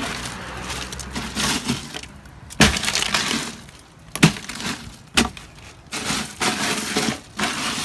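Loose ice cubes clattering and crunching in a plastic cooler as a hand digs through them and shifts the fish, with several sharper knocks among the rattling.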